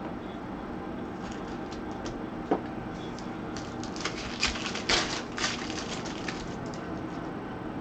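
Trading cards and their packaging being handled: a single sharp click about two and a half seconds in, then a run of crackling, rustling clicks around four to six seconds in. A steady low hum runs underneath.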